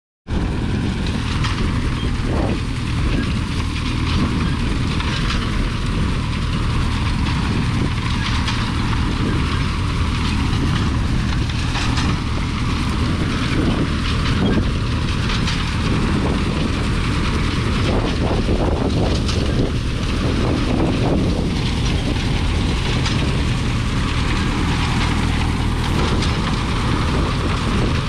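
A McCormick Deering grain binder running as it cuts wheat: a steady mechanical clatter over a constant low drone, with scattered short sharp clacks from the mechanism.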